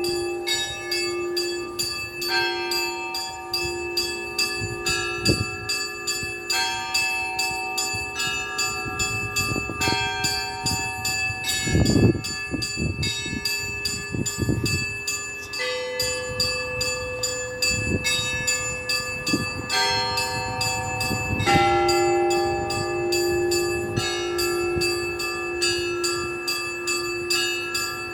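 Russian Orthodox church bells rung in a continuous peal: small high bells struck quickly in a repeating pattern over a held lower bell tone, with a few heavier low strikes, the loudest about halfway through.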